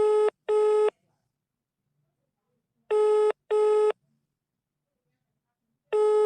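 Telephone ringback tone heard by the caller: a steady buzzing tone sounding in double rings, two short bursts close together, repeating about every three seconds while the call rings out unanswered. Two full double rings play, and a third begins right at the end.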